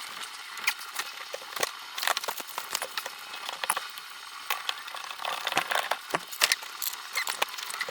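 Irregular light clicks, knocks and rattles of hands and tools working on the engine while the lower coolant hose is being fitted.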